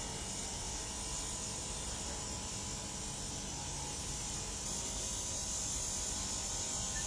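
Steady outdoor background noise with no distinct event: a low rumble under an even hiss, the hiss growing a little stronger about five seconds in.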